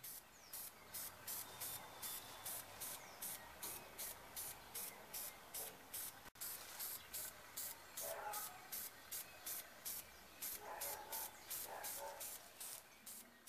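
Aerosol can of spray primer being worked: an even run of short bursts, about three a second.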